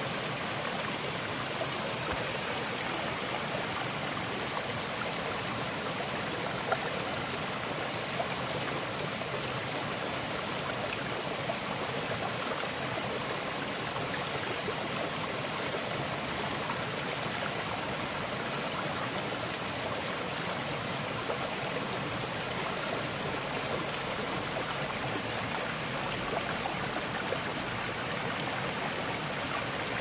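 Shallow mountain stream flowing over rocks and stones: a steady, even hiss of running water.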